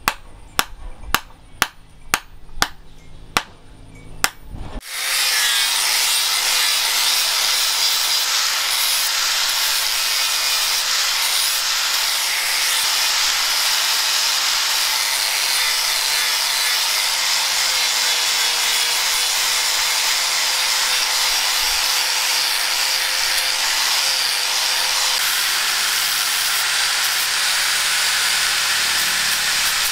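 A hammer strikes about two to three blows a second, driving a knife handle onto its tang. After about five seconds an electric angle grinder with a flap disc takes over, running steadily against the steel blade, a continuous grinding noise with a steady motor whine. It stops right at the end.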